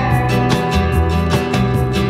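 Background music: guitar with gliding notes over a steady beat.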